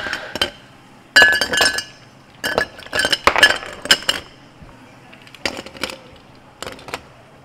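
Ice cubes poured from a scoop into tall drinking glasses, clinking and rattling against the glass in several short bursts.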